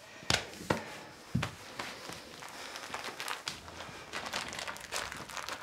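Faint rustling and handling sounds of someone moving and kneeling beside a person on the floor, with a few soft knocks in the first second and a half.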